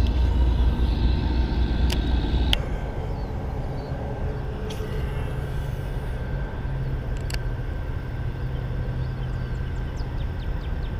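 Highway traffic from the road nearby, a steady low rumble of passing vehicles that is heavier for the first two and a half seconds, with a few sharp ticks over it.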